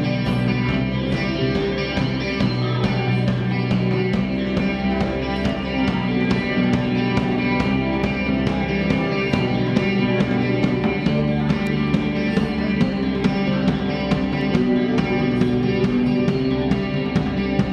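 A rock band playing an instrumental live: electric guitars over a drum kit keeping a steady beat on the cymbals.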